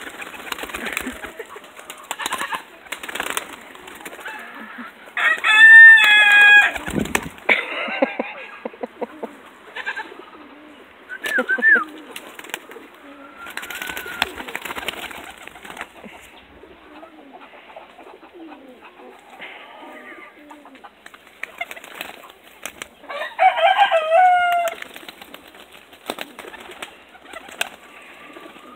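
Young pigeons flapping their wings as they flutter onto and around a hand feeding them, in repeated bursts of wingbeats with soft pigeon calls between. Two louder, drawn-out pitched bird calls stand out, about six seconds in and again about twenty-four seconds in.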